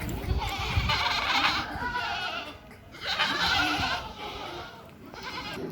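Goats bleating: two long, wavering bleats, one after the other.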